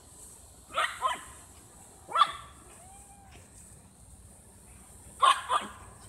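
Small dog barking in play: two quick barks about a second in, one just after two seconds, and two more near the end. A steady high cicada drone runs underneath.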